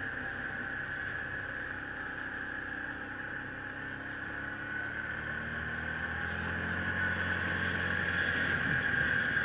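Yamaha Kodiak ATV's single-cylinder four-stroke engine running while riding, with a steady high whine over it. From about halfway the engine note rises and grows louder as the quad speeds up.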